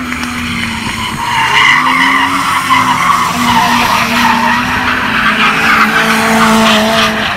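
Car drifting on asphalt: the tyres squeal continuously over the engine held at steady revs, growing louder about two seconds in.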